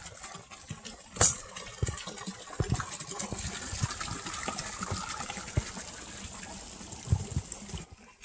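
Small streams of water pouring from spouts into a shallow rock pond, splashing steadily, stopping abruptly near the end. Low thuds of footsteps run through it, with one sharp knock about a second in.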